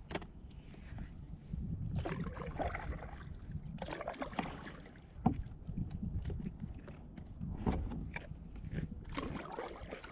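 Kayak sailing along: water splashing and washing against the hull in irregular bursts, over a steady low wind rumble on the microphone, with a few sharp knocks.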